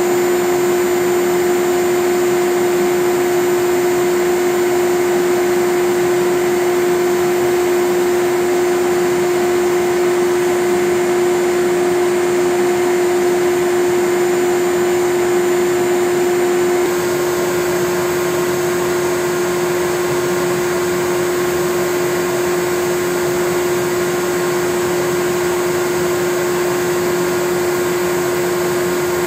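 Siemens Simodrive 611 drive on a repair test rig, running under test: a loud, steady machine whir with a strong steady hum-tone. A little past halfway the mix of tones shifts and the level drops slightly.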